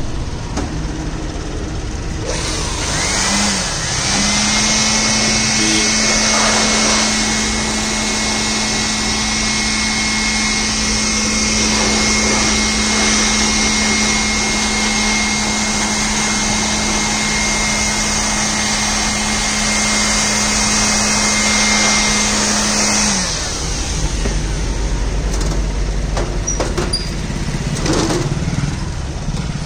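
Handheld electric air blower switched on, its motor whine coming up to speed and then running steadily with a loud rush of air as it blows dust out of a desktop computer case. It cuts off sharply about three-quarters of the way through.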